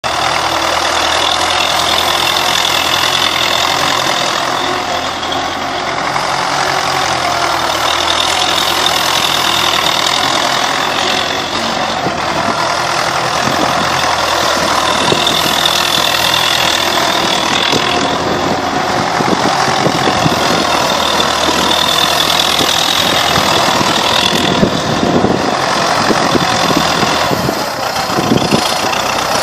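Universal 650 M tractor's four-cylinder diesel engine running steadily, with a diesel knock.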